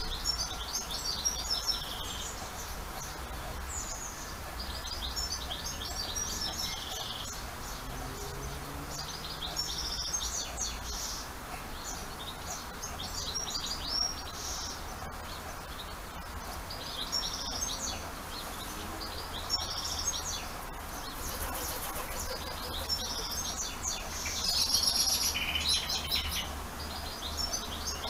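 Songbirds singing: quick, high twittering phrases repeated every second or two, over a low steady rumble.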